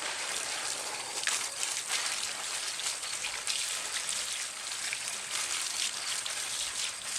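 Garden hose spraying a steady hissing stream of water that spatters on a person's head and ear as slime is rinsed off.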